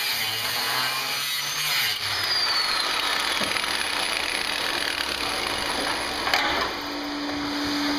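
Angle grinder cutting through rusted sheet-steel van body at a floor seam, with a dense grinding hiss throughout. One sharp knock about six seconds in is the loudest moment, and a steady hum sets in near the end.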